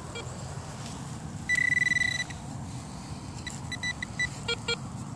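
Handheld metal-detecting pinpointer probed in a dig hole. It gives one steady high beep a little under a second long about one and a half seconds in, then a quick string of short beeps near the end, signalling metal in the soil.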